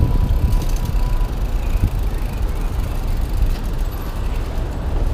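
Steady low rumble of wind and tyre noise on the camera's microphone as a mountain bike rolls slowly over paving stones.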